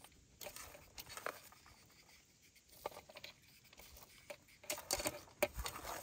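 Shredded white cabbage rustling and crackling softly as handfuls are laid onto a metal serving tray, in scattered short crackles that come thicker near the end.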